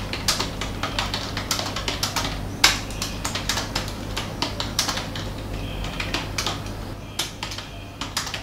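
Typing on a computer keyboard: irregular keystroke clicks, several a second, thinning out near the end, over a steady low hum.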